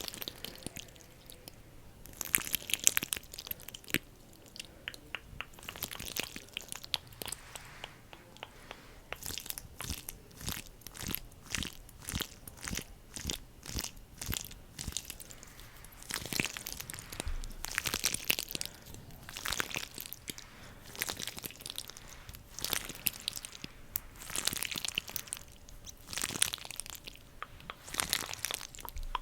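Close-up sticky crackling and clicking, like a tacky surface being pressed and pulled apart, in quick runs of sharp clicks with short pauses between them.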